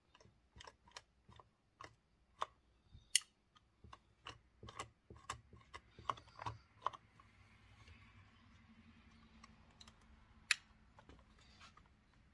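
Irregular sharp plastic clicks and snaps as the throttle trigger and linkage in the rear handle of a Husqvarna 365 chainsaw are worked and fiddled with by hand, with a louder snap about three seconds in and another near the end.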